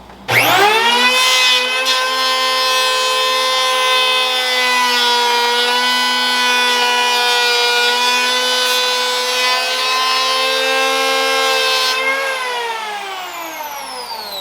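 Wen 6530 3-1/4-inch electric hand planer switched on, its motor whine climbing to full speed within a second, then running steadily while it planes a wooden board. Near the end it is switched off and winds down, the whine falling in pitch.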